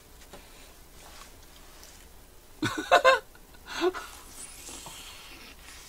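Short wordless vocal sounds from a man eating, a quick loud two-part burst about three seconds in and a smaller one just before four seconds, with faint eating sounds as two men bite into soft bread-bun burgers.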